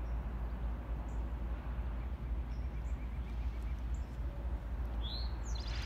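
Birds chirping and calling over a steady low rumble, with a quick trill near the middle and a falling call near the end.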